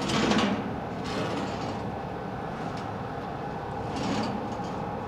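Steady mechanical running noise of welding-shop equipment, with a short rustle and knock at the start and a few faint knocks of gear being handled against the steel box.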